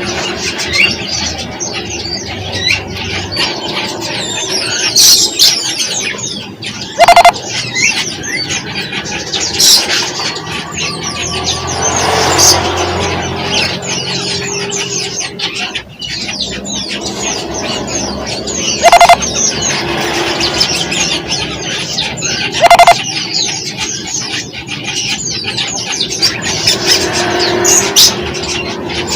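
Many small birds chirping and twittering continuously, with three short, loud whistle-like blasts about 7, 19 and 23 seconds in.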